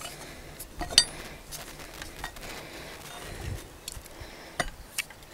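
A few light metallic clinks from a thick steel plate and eye bolt being handled and fitted against a tree branch: one sharp click about a second in and a couple more near the end.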